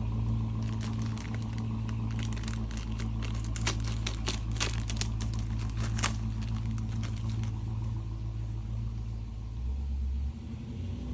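Car engine running steadily outside, a low hum, with a run of crinkling, crackling clicks over most of the first seven seconds.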